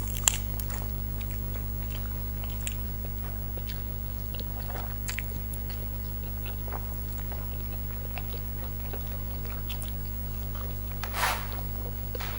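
People chewing and eating food, with small scattered clicks, over a steady low hum. A sharp click comes just after the start, and a brief rush of noise comes about eleven seconds in.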